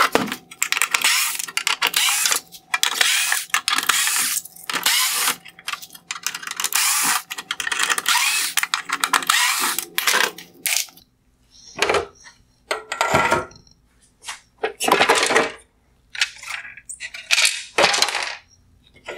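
T20 Torx screws being driven out of a 2016–2019 GMC Sierra LED headlight's chrome bezel: rapid clicking and rattling in bursts for about ten seconds, then separate metallic clinks and clatters as screws and bezel pieces are set down.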